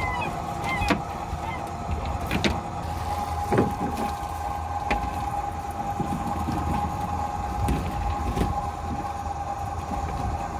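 Fishing boat's engine and line hauler running, a steady mid-pitched whine over a low rumble, with scattered knocks and clatter of gear on deck.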